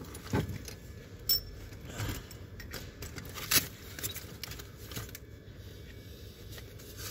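Metal hand tools clinking and a fabric tool bag rustling as tools are rummaged for and pulled out, with a few sharp metallic clicks, the loudest about three and a half seconds in.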